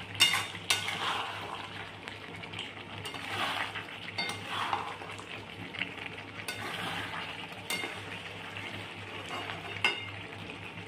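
A spatula stirring and scraping chicken pieces and potatoes frying in thick masala in a kadai, with sizzling throughout and a few sharp knocks of the spatula against the pan. The chicken is being dry-fried in its spices (kosha) before water is added.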